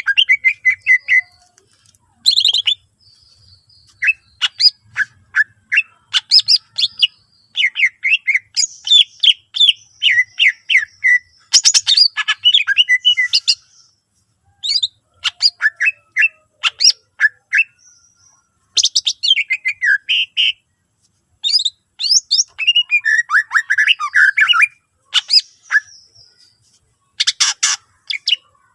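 Greater green leafbird (cucak ijo) singing hard in fast runs of varied chirps, trills and whistled glides, its song packed with mimicked calls of other birds. Short pauses separate the phrases, and a few harsh, sharp notes cut in.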